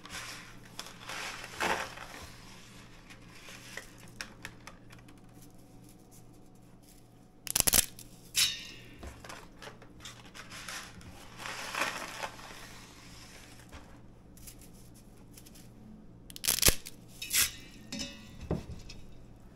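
Handfuls of dry spaghetti being snapped in half by hand: crackling and rustling of the brittle strands, with two loud sharp snaps, one about a third of the way in and one near the end.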